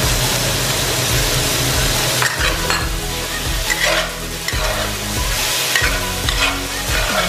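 Sliced pork and vegetables sizzling in a hot stainless-steel wok as sliced peppers are tipped in and stir-fried. From about two seconds in, a metal spatula scrapes and tosses the food in a run of short strokes roughly every half second to second.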